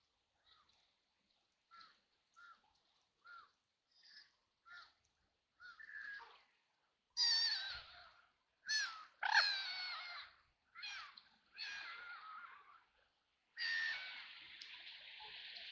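Ducks quacking: a run of short quacks that grows louder, then louder, harsher quacks from about halfway, ending in a longer drawn-out call.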